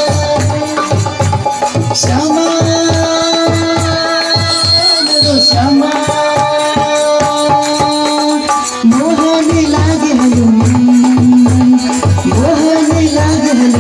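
Nepali devotional bhajan music in an instrumental passage between sung verses: a held melody line stepping from note to note over a steady hand-drum beat, with rattling percussion.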